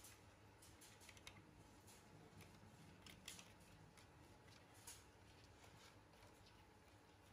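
Near silence with faint, scattered soft clicks from kittens suckling at and pawing a plastic water bottle.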